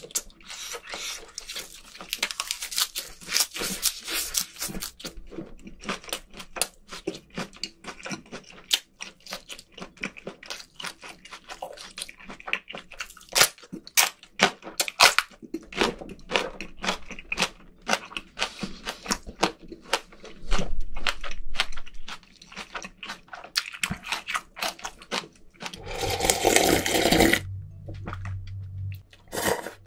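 Close-miked chewing of raw squid and vegetables: wet, sticky mouth clicks and smacks with crunchy bites. Near the end, a loud gulping slurp of broth drunk from a cup of instant noodles.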